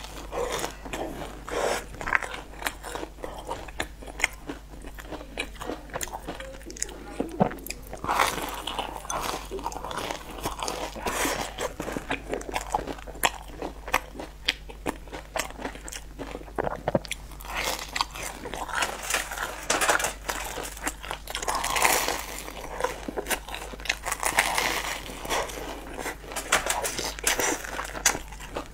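Close-miked biting and chewing of sugar-crumb-coated fried bread twists: irregular crisp crunches, bunched more densely in stretches.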